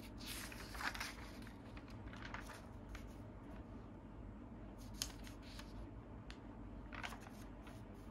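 Magazine pages being turned by hand: soft paper rustles, about a second in and again near seven seconds, with a sharp flick of a page near five seconds.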